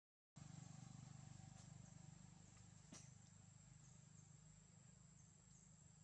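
Near silence: faint forest ambience under a steady high-pitched insect whine. The sound drops out completely for a moment at the start, a low hum follows for the first couple of seconds, and there is a single faint click about three seconds in.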